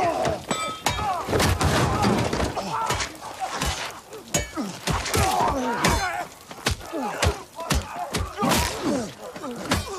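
A fistfight: punches and kicks landing about once or twice a second, with men grunting and crying out in pain between the blows.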